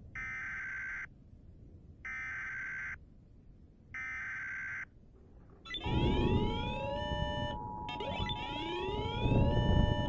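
Simulated NOAA Weather Radio alert: three one-second bursts of the SAME data-header screech, a second apart. A little before six seconds in, the long steady alarm tone begins, layered with repeatedly rising siren-like tones and a low rumble. The alert announces an incoming severe thunderstorm warning.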